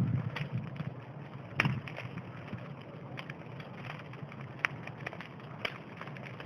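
Wood fire crackling, with many small ticks and three sharp pops: one about a second and a half in and two near the end.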